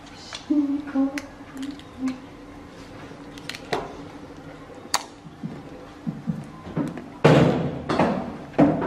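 Salted raw crabs being cracked and pulled apart by hand: scattered sharp shell cracks and clicks, with pieces set down in a ceramic bowl, and a louder stretch of crunching and rustling near the end.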